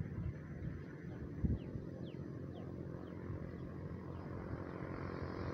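Low, steady rumble of a distant motor vehicle engine, with a single thump about one and a half seconds in and a run of short, high, falling chirps in the middle.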